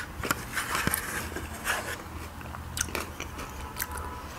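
Close-up eating sounds: a metal spoon clicking against a glass bowl of chicken soup, with wet chewing and sipping mouth sounds between the clicks.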